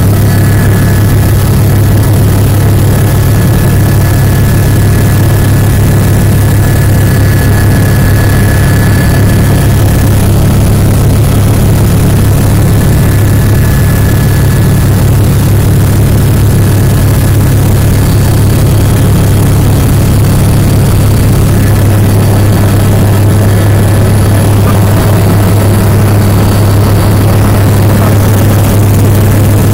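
Helicopter in flight heard from inside the cabin: a loud, steady drone of rotor and turbine with a strong low hum and a faint high whine over it.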